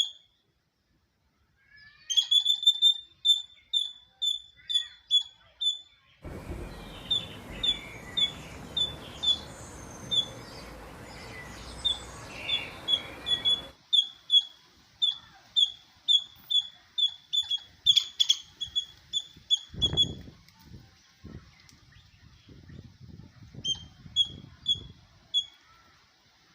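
Squirrel calling in a long run of short, high-pitched chirps, about three a second, pausing briefly near the end before starting again. For several seconds a rushing noise of wind or handling on the phone's microphone lies under it, and a few low knocks come later.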